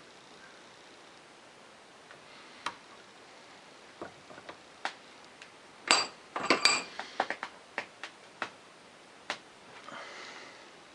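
Small metal tools and parts clinking and tapping on a workbench: scattered sharp clicks, with a cluster of louder, ringing metallic clinks about six to seven seconds in.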